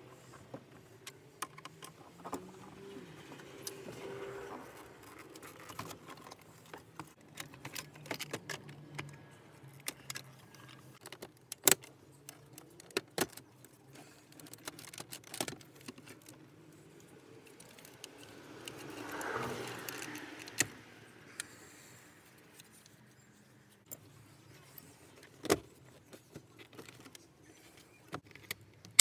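Scattered clicks, clinks and knocks of a screwdriver and plastic trim as a Toyota Camry's centre console and dash pieces are unscrewed and pried loose. Now and then there is a sharper knock, and about two-thirds of the way through there is a short scraping rush.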